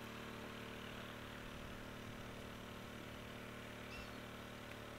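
A steady low hum with several fixed pitches, like an engine idling, over faint outdoor background noise; no distinct event stands out.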